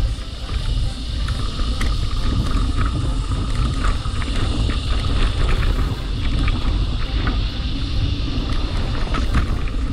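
Mountain bike riding down a dirt singletrack: heavy wind buffeting on the microphone over the rumble of the tyres, with scattered clicks and rattles from the bike.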